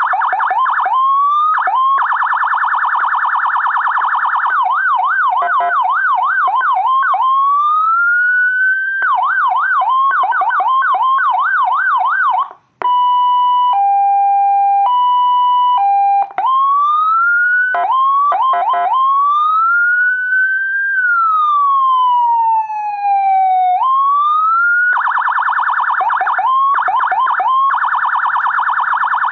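Electronic emergency-vehicle siren amplifier cycling through its tones: a fast yelp, a harsh rapid piercer tone, short rising whoops, a hi-lo two-tone stepping between two pitches in the middle, and a slow wail that rises and falls. It cuts out briefly just before the hi-lo starts.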